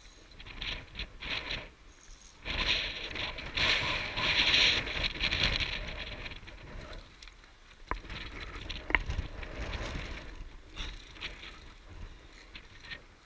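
Scraping and rubbing of hands and gear against rock and a steel via ferrata cable, loudest in a stretch from about two and a half to six seconds in, with a few short sharp clicks, two of them about eight and nine seconds in.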